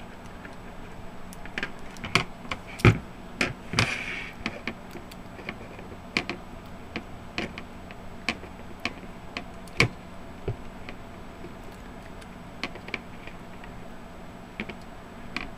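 Small, irregular clicks and taps of a 9-volt battery snap connector being worked onto a battery's terminals, a fiddly fit. The loudest clicks come about three and four seconds in.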